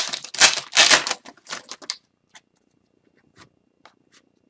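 A trading card pack's plastic wrapper crinkling as it is torn open, then a few short, faint clicks of the cards being handled.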